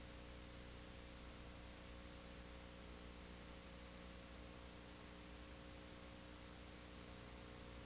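Near silence: a faint, steady hiss with a low electrical hum.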